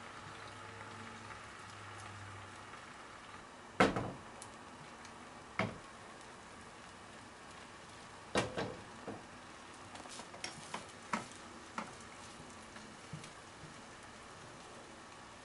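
A thin layer of beaten egg sizzling faintly in a nonstick frying pan over a gas flame. Sharp clacks of the pan and cooking utensils cut in over it, the loudest about four seconds in, more near six and eight seconds, then a run of lighter clicks.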